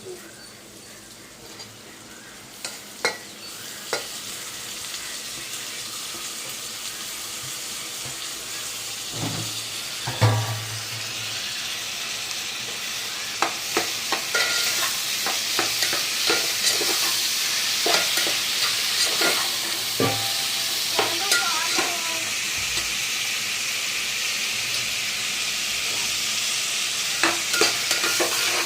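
Tomatoes frying in hot oil with ginger-garlic paste in a pan, sizzling, while a spoon stirs and knocks against the pan. The sizzle grows louder over the first dozen seconds, and there is a louder knock about ten seconds in.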